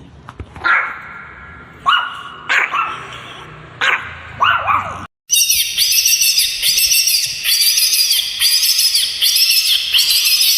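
A dog barking, about six short barks over five seconds. Then, after a cut, a steady run of high-pitched chirping calls repeating about twice a second.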